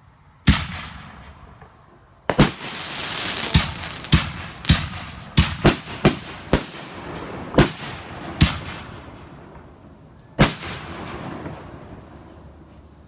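Consumer aerial fireworks bursting: about a dozen sharp bangs, each with an echoing tail, most of them in a quick run through the middle, with a hissing crackle between about two and four seconds in and a last single bang near the end.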